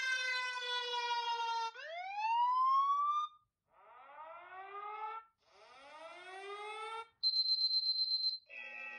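Alarm and siren tones played one after another from a small phone speaker. A falling siren wail is followed by a rising sweep and two runs of quick rising whoops. Then comes a rapidly pulsing high beep of about a second, and a buzzy alarm tone starts near the end.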